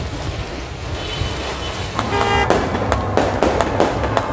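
Wind and rain noise for the first couple of seconds, then horns tooting and a run of sharp cracks from fireworks bursting overhead.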